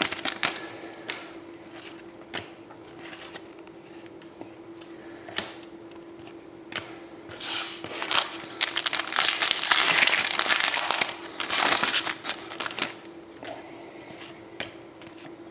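Trading card packs and cards being handled: wrappers crinkling and cards rustling and sliding in short scattered bursts, busiest in the middle, over a faint steady hum.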